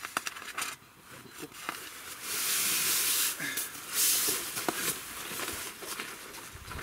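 Down sleeping bag (Down Hugger 800 #0) being pulled out and shaken open: light handling clicks at first, then two loud swishes of rustling fabric, one about two seconds in and a shorter one about four seconds in.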